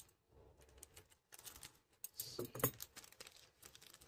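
Faint crinkling, rustling and small clicks of a blind-bag toy packet being handled and opened by hand, with a slightly louder cluster of crinkles about two seconds in.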